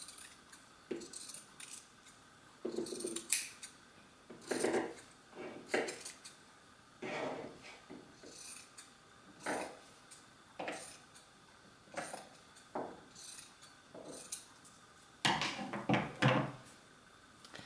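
Scissors cutting through T-shirt knit fabric, snip after snip, about one cut a second.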